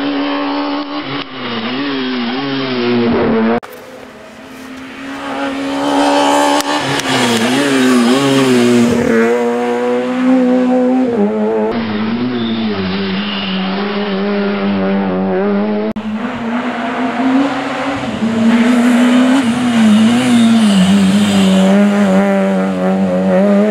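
Citroën Saxo Group A rally car's four-cylinder engine driven hard at racing revs, the pitch rising and falling again and again with throttle and gear changes. It is heard in several separate passes that break off abruptly. After a few seconds it drops away, then swells back as the car comes close again.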